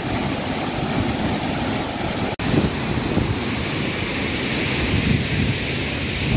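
Waterfall in monsoon spate, a heavy flow of muddy water pouring over rocks into a flooded pool, making a steady rushing noise, with wind buffeting the microphone. The sound drops out for a split second a little over two seconds in.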